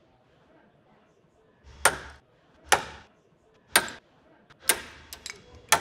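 A hammer striking the metal striking cap of a Milwaukee bevel-edge chisel, driving the blade into a wooden block: five sharp strikes about a second apart, starting about a second and a half in, with a couple of lighter clicks near the end.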